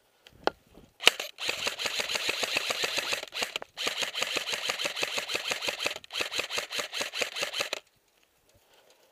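Airsoft automatic electric rifle firing full-auto: a rapid, even stream of shots in one very short burst and then three long bursts, the gearbox cycling many times a second. A single sharp snap comes just before.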